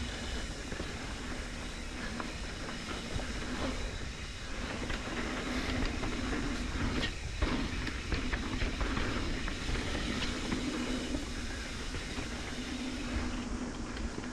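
Mountain bike rolling over a dirt trail, recorded by an action camera mounted on the bike. A steady rumble of the tyres runs throughout, with scattered clicks and rattles from the chain and frame.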